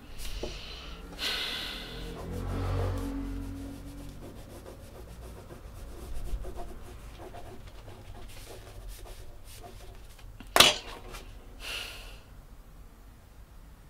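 Pen scratching across notebook paper in a series of writing strokes. About ten seconds in, a single sharp knock stands out as the loudest sound, followed by a short hiss.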